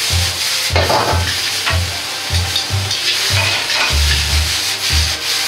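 Rice noodles and vegetables sizzling in a hot wok as they are tossed and stirred, with utensils scraping against the wok now and then. Background music with a low beat pulses underneath, about three times a second.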